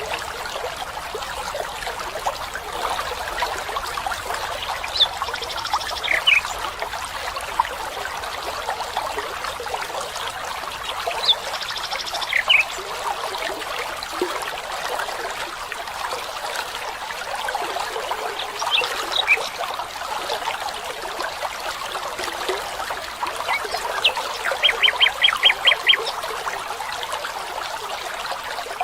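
Small stream trickling and splashing steadily while birds call: a short phrase of a few high notes twice, about six seconds apart, a few scattered chirps, then a quick run of about seven notes near the end.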